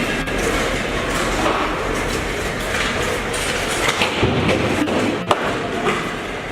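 Sledge hockey play in an ice arena: sticks and puck knocking on the ice, with a few sharp knocks past the middle, over a steady echoing hall noise.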